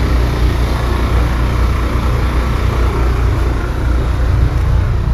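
Road vehicle driving: a steady low rumble of engine and road noise.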